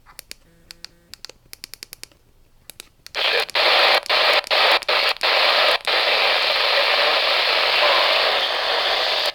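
Weather radio receiver hissing with static, coming in about three seconds in after a few faint clicks. The hiss cuts out briefly five or six times at first, then runs steadily.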